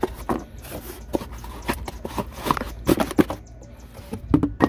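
Cardboard box being closed by hand, its flaps folded and pressed shut with an alternator inside, giving irregular knocks and rustles of cardboard.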